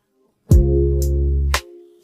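Background music: after a brief silence, a held bass note with a beat of sharp drum hits about every half second, fading near the end.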